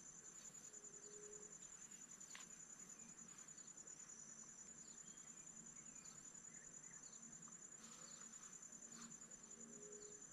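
Faint, steady high-pitched trilling of insects, with a few faint ticks here and there.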